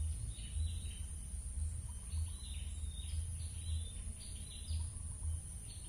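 Birds chirping in quick runs of short falling chirps over a steady high-pitched hiss and a pulsing low rumble.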